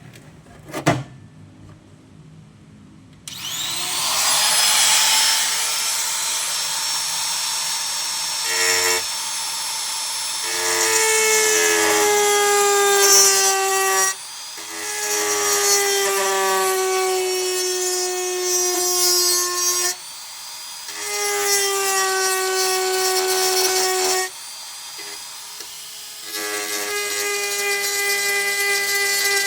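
Electric grinder spinning up about three seconds in and cutting rusty sheet steel, its whine sagging in pitch as it bites into the metal. It stops and restarts several times with short pauses. A single sharp click comes about a second in, before it starts.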